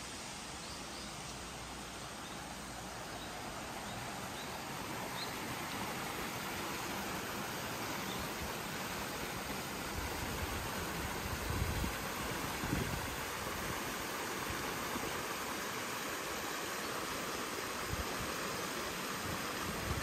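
Steady rushing of flowing river water, the Kiyotaki River, with a few low bumps about halfway through.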